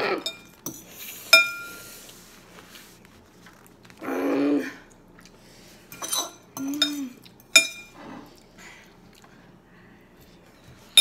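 Metal forks clinking and scraping against a ceramic bowl of noodles: several sharp clinks, the loudest about a second in. There are two short wordless voice sounds around the middle.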